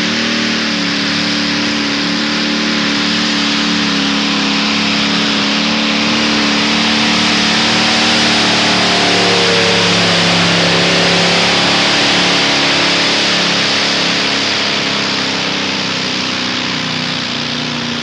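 Multi-engine modified pulling tractor running at full throttle while it drags the weight-transfer sled down the track: a loud, steady engine sound that holds its pitch, wavering slightly midway.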